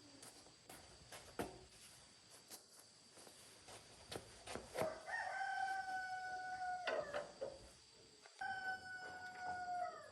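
A rooster crowing twice, each crow a long held call of a second and a half or more that sags slightly in pitch at the end. Scattered light clicks and knocks are heard between the crows.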